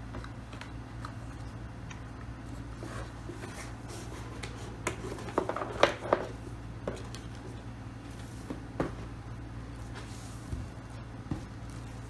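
Hands handling a Keychron K2 keyboard and its packaging: scattered light clicks and rustles, with a denser flurry about five to six seconds in, over a steady low hum.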